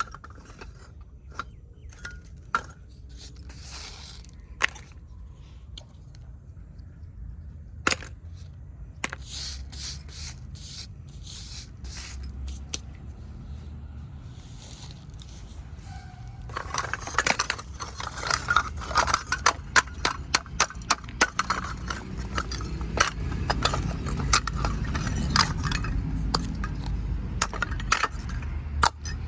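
Baked clay kulhad cups being broken and crushed: scattered sharp cracks and clinks at first, then about halfway through a dense run of crunching and crackling as the brittle clay breaks up.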